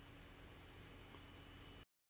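Near silence: faint steady background noise, cutting out to dead silence just before the end.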